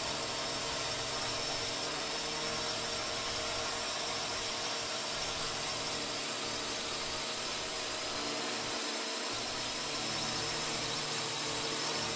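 Steady engine drone with a high hiss and a faint whine, of the kind heard from an aircraft in flight.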